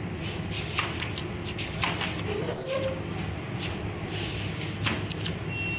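Paper pages of a thick printed book being turned, with soft scattered rustles and one brief, sharper sound about two and a half seconds in.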